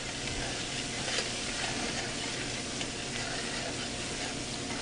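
Diced bacon, onion, mushroom and celery sizzling steadily in hot oil in a stainless steel sauté pan as they are tossed with metal tongs, with a few faint clicks. The vegetables are cooking down to drive off their water.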